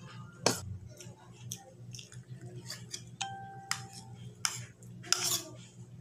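Metal spoon clinking and scraping against a plate while eating: a series of sharp clicks, the loudest about half a second in and another about five seconds in.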